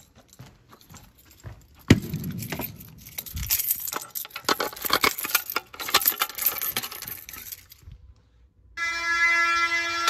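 A sharp knock about two seconds in, then several seconds of rattling clicks. Near the end a fire alarm horn starts sounding, a loud steady tone.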